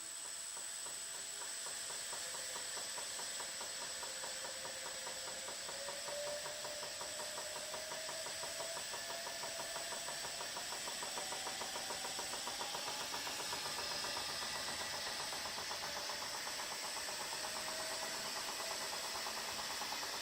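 A running machine knocking rapidly and evenly, a "tok tok tok" heard as a terrible noise, with a faint whine slowly rising in pitch.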